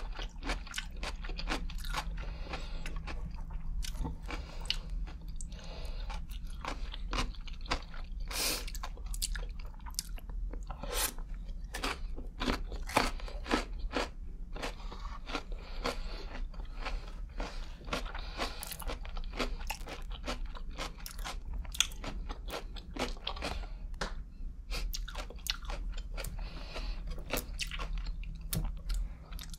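Close-miked biting and chewing of a pickled gherkin: a rapid stream of sharp, wet crunches and mouth clicks.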